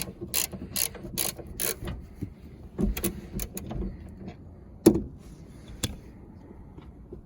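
Hand ratchet turning a seat belt bolt: a run of evenly spaced clicks, two or three a second, for about two seconds, then scattered clicks and a sharp knock partway through.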